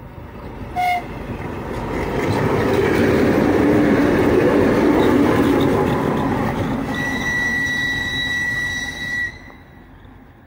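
Two-section 2TE10MK diesel locomotive running light, passing close by at speed: a short horn toot about a second in, then a rising rumble of engines and wheels on rails that peaks and fades. A steady high-pitched tone sounds as it goes by and cuts off suddenly near the end.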